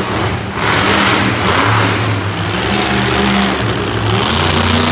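Monster truck engine revving up and down repeatedly as the truck drives across the arena dirt.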